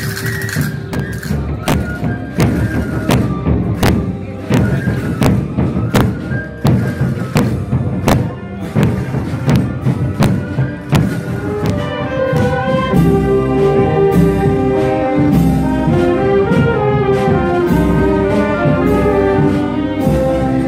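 Street wind band of clarinets and brass with a drum. For about the first twelve seconds steady drum strokes dominate, with scattered notes between them; then the band comes in fully with a sustained melody.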